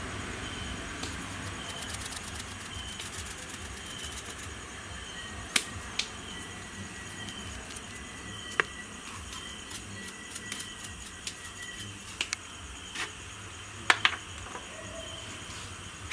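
Steady background chirping of insects, with a handful of sharp light clicks and taps scattered through it, the loudest a quick pair near the end.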